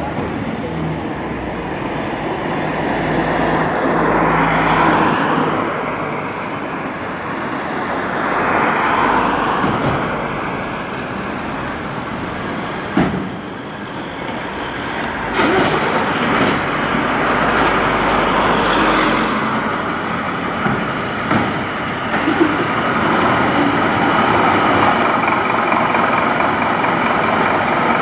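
Fire trucks' diesel engines idling together, a steady low rumble, with road traffic passing by twice early on and a few short sharp noises about halfway through.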